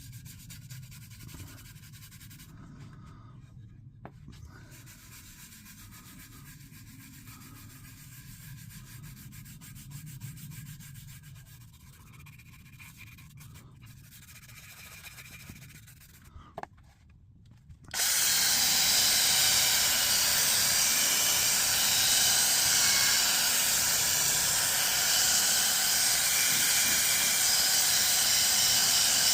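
Faint rubbing of wax being worked by hand into the wooden stock of an air rifle. About 18 seconds in, a much louder steady hiss starts abruptly and covers it.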